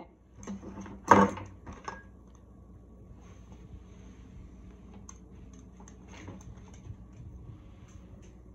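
A loud clatter about a second in, then faint scattered clicks and knocks of kitchen handling over a faint steady hum.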